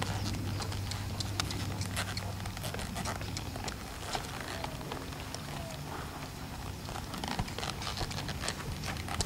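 American Paint Horse gelding moving under a rider on a sand arena: irregular hoofbeats and light clicks. A low steady hum fades out about two and a half seconds in.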